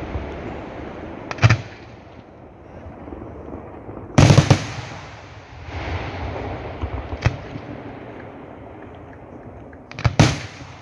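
Aerial fireworks shells bursting: sharp bangs a few seconds apart, the loudest a cluster about four seconds in and a close pair near the end, with the crackle of glittering stars between them.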